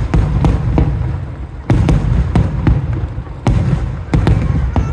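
Aerial fireworks going off in quick succession: several loud booms, about two seconds in, halfway and near the end, with crackling and rumble between them.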